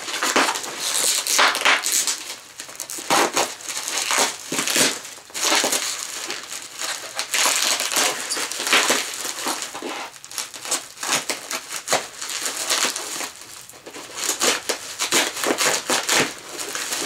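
Plastic packing wrap crinkling and rustling in irregular spells as it is cut open with a knife and pulled off a packed item.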